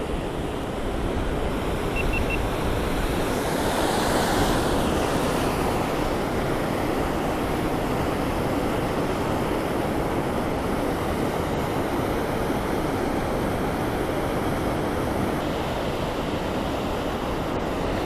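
Steady rush of river water pouring over a concrete low-head dam, with some wind on the microphone.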